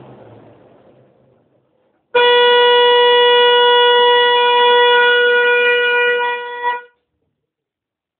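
Guascor V12 boat engine running down and fading out over the first second and a half. After a brief silence, a loud steady horn tone sounds for about four and a half seconds and cuts off suddenly.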